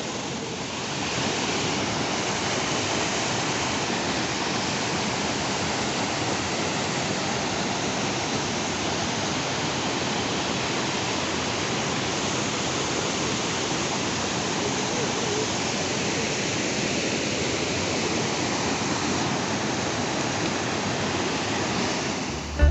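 Waterfall: a steady, fairly loud rush of water falling over rock.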